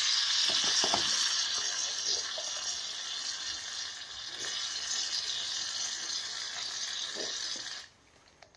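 Aerosol can of shaving foam spraying in one continuous hiss for about eight seconds, then cutting off suddenly.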